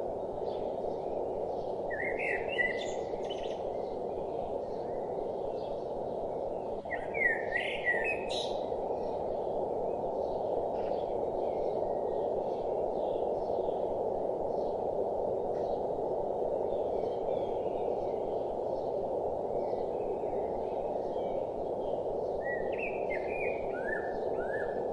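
Several birds chirping and singing, in short bursts that are loudest about two seconds in, around seven to eight seconds, and near the end, with fainter calls in between. Underneath runs a steady, muffled rush of flowing water.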